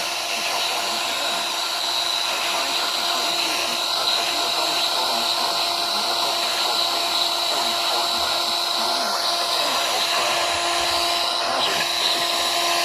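Radio static: a steady hiss of noisy reception with faint steady tones running beneath it.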